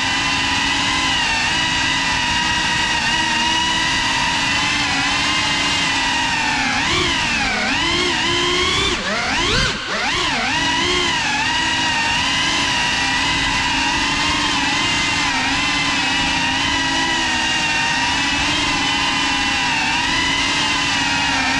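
Motors and propellers of a GEPRC 35 cinewhoop drone running with a steady high whine made of several stacked pitches. About seven seconds in the pitch dips and rises, and near ten seconds it swoops sharply up and back down as the motors speed up and slow down.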